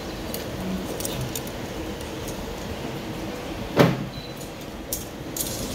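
Light clicks of metal tongs on an air fryer's nonstick basket as pork belly is turned, then a single loud clunk a little under four seconds in as the basket drawer is slid shut into the air fryer, followed by a few small clicks.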